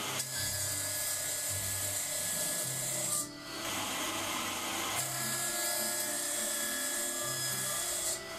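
Band saw cutting a spruce rail to form a tenon, a steady high-pitched whine and hiss of blade in wood, in two passes with a brief break about three seconds in. Background music plays underneath.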